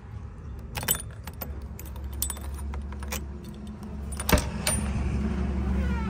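Heavy diesel machinery engine running steadily, growing louder a little after four seconds in, with sharp metallic clanks and jingling rattles; the loudest clank comes just past four seconds in.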